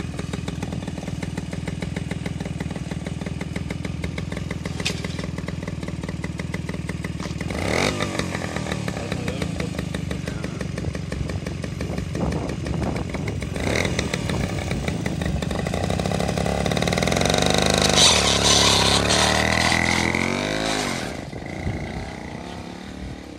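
Home-built single-cylinder engine of a motorized bicycle running steadily at idle, with a couple of short revs. About two thirds of the way in it revs up as the bike pulls away, loudest shortly after, then fades near the end as it moves off.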